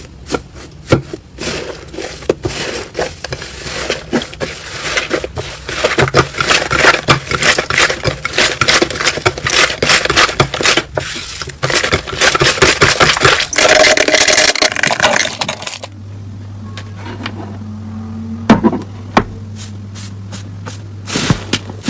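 Slime being pressed and pulled close to the microphone, giving dense crackling and popping clicks. About sixteen seconds in the clicks thin out and a steady low hum comes in under sparser pops.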